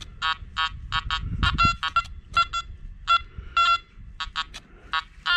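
Nokta Makro Anfibio Multi metal detector giving a quick run of short electronic beeps, about three a second, as the coil is swept over a nickel sandwiched between two quarters. The mixed target makes the signal jumpy, with the target ID flipping between a high 86 and 68.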